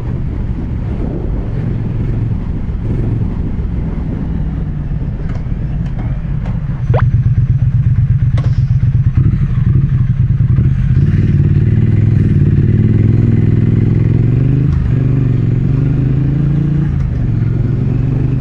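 Motorcycle engine heard from the rider's seat while riding in traffic. About seven seconds in, its exhaust beat becomes louder and more distinctly pulsing. From about eleven seconds its pitch rises as it pulls away, dipping once near fifteen seconds, as at a gear change, before rising again.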